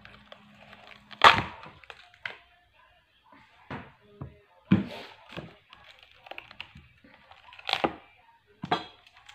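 Crisp cracks of a raw fennel bulb being broken apart by hand, a few separate snaps with the loudest about a second in.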